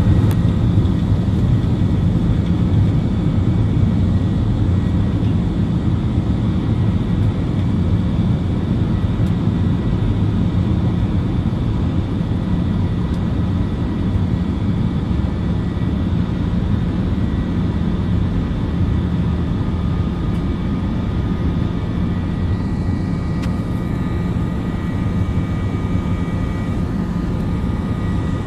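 Airbus A321 heard from inside the cabin while taxiing: the engines at low thrust give a steady low rumble with a few faint high whines over it.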